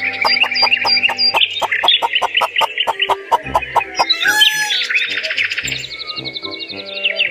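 Many chickens in a poultry house calling together in rapid overlapping cheeps and clucks, over light background music.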